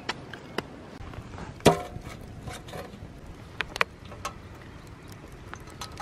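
Wood fire crackling, with sharp irregular pops from the burning logs and embers. A little under two seconds in comes one loud metallic clank with a brief ring, from the steel frying pan on the fire.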